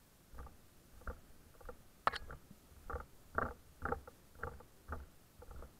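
Footsteps on a dry, stony dirt trail, about two a second, with one sharper click about two seconds in.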